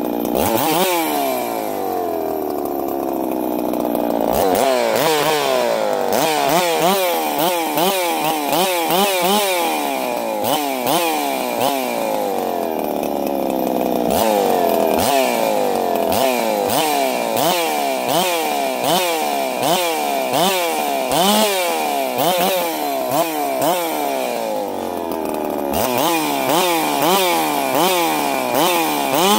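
Rebuilt two-stroke G660 chainsaw on its first run, the throttle blipped over and over. The engine revs up and falls back about once a second, and settles back toward idle in a few slower drops.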